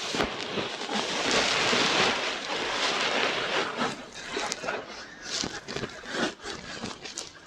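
Close-up scratching and rubbing right at an ear microphone: a dense, rustling scrape for the first few seconds, then thinning into separate short scratches and small clicks.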